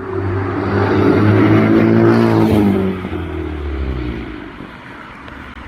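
Car engine revving, held at high revs, then falling back as the throttle closes about two and a half seconds in.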